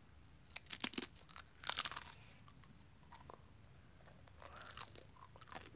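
A Pringles crisp being bitten and chewed: a run of sharp crunches in the first two seconds, loudest just before two seconds in, then softer crunching near the end.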